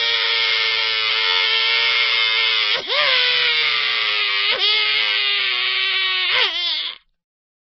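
Cartoon crying sound effect: one long, high, steady wail, broken three times by quick sobbing catches where the pitch dips and springs back up. It stops abruptly near the end.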